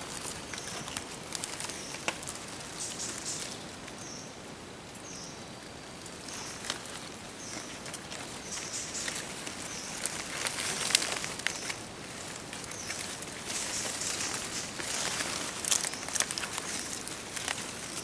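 Footsteps and rustling through leaves and undergrowth, with scattered sharp crackles that grow busier in the second half. Short high chirps repeat through the first half.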